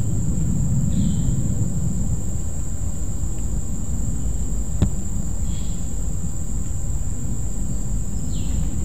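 Outdoor ambience: a steady high-pitched insect drone over a constant low rumble. There are a few faint short chirps, and one sharp click about five seconds in.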